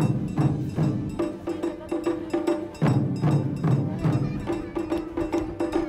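Children's taiko ensemble drumming: a fast, steady rhythm of strikes on large barrel taiko drums, sharp clicking hits mixed with clusters of deep, heavy beats.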